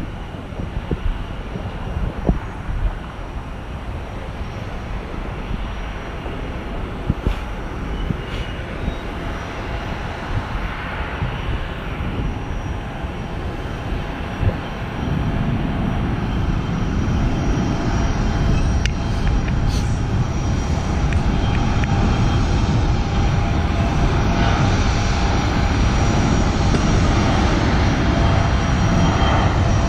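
Distant jet airliner engines running, a continuous rumble that grows louder about halfway through.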